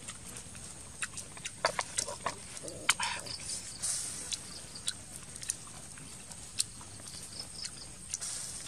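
Scattered light clicks, taps and brief rustles from close handling of a small black mortar and pestle and bowls, with a few soft mouth noises.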